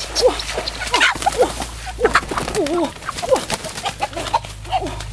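Several chickens clucking, short bending calls one after another in quick, irregular succession.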